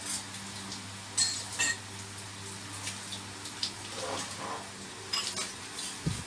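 Permanent-makeup rotary pen humming steadily as the needle works an eyebrow tattoo, with a few light clicks and clinks now and then.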